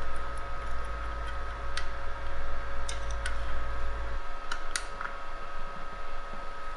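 Scattered light clicks and ticks from a small hand tool and connectors being handled on a brass receiver chassis, over a steady low hum that drops away about four seconds in and two faint steady tones.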